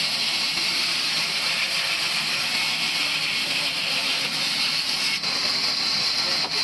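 Steady, even hissing noise of sawmill machinery running, with no change in level.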